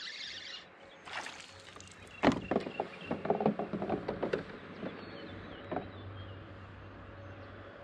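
Rod and reel handling on a fishing kayak as a bass is hooked: a sharp knock about two seconds in, then a quick irregular run of knocks and rattles for about two seconds, with one more knock later. A faint low steady hum comes in during the second half.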